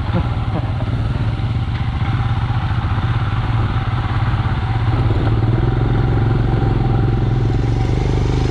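Royal Enfield Himalayan's 411 cc single-cylinder engine running steadily at low speed. It grows a little louder about five seconds in.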